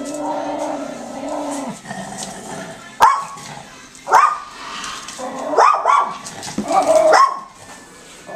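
A small terrier growls low and steadily for the first couple of seconds, then barks sharply about six times, some in quick pairs. It is a scared dog barking at a cardboard cutout of a mailman.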